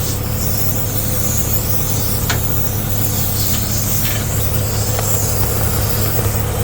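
Compressed air hissing steadily from a leak in a homemade tire-inflation hose fed from a semi truck's red trailer supply line, over the truck's diesel engine idling. A couple of faint clicks sound through it.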